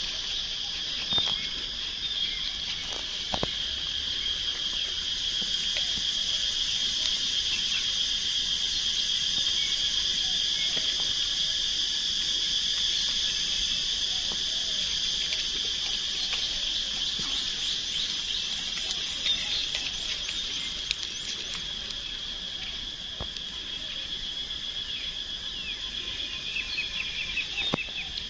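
Steady, high-pitched chorus of insects droning without a break, with a few faint clicks.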